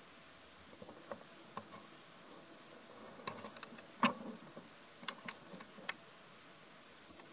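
Dry fallen leaves crackling and rustling in a scattered run of sharp clicks, the loudest about four seconds in.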